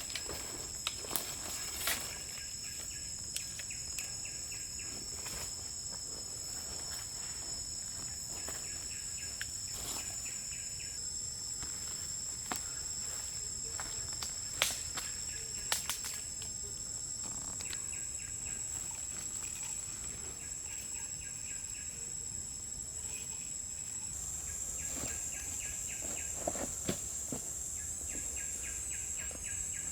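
Insects buzzing steadily at a high pitch, with several stretches of rapid, pulsed chirping. A few sharp clicks stand out now and then.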